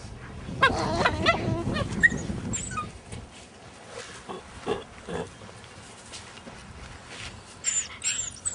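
Two Alaskan Malamute puppies play fighting. Low growls and grunts fill the first couple of seconds, followed by scattered scuffling, and short high yelps come near the end.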